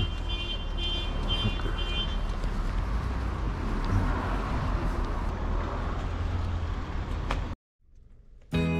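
Steady low rumble of a car running, with a high electronic beeping repeating over the first two seconds. The sound cuts off suddenly near the end, and music starts just after.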